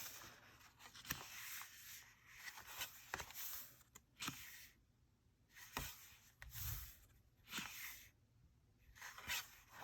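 Thick cardstock pages of a bound postcard book being turned by hand: soft paper rustling with several crisp flicks as pages snap over.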